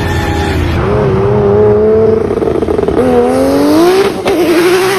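Turbocharged 2JZ inline-six in a BMW E30 accelerating hard. The engine note climbs steadily, drops sharply at a gear change about three seconds in and climbs again. There is one sharp crack about four seconds in, and the pitch wavers near the end.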